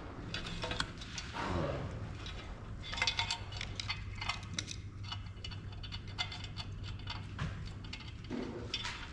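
Small metal clicks, taps and brief rattles of tools and printer parts being handled during a teardown, with a cluster of clicks about three seconds in, over a steady low hum.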